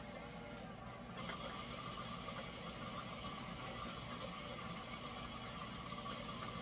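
Electric stand mixer running steadily, its beater working a thick quick-bread batter with chopped nuts; about a second in it gets louder and brighter, as the speed is turned up.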